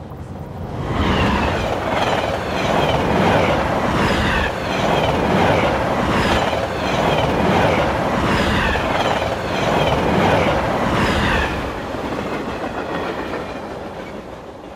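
Concert audience applauding and cheering at the end of a live song, swelling about a second in and fading away near the end.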